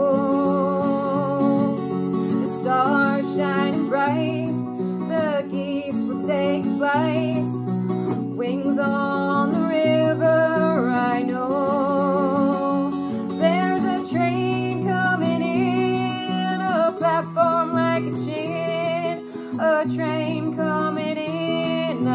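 A woman singing with vibrato over an acoustic guitar accompaniment.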